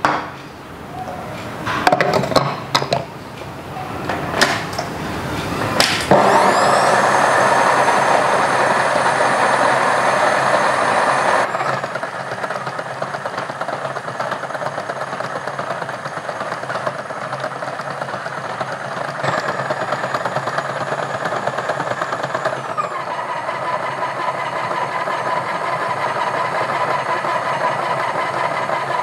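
Philips HR7776 1300-watt food processor motor kneading chapati dough, running steadily from about six seconds in, after a few knocks. Its pitch shifts a few times as the dough gathers into a ball.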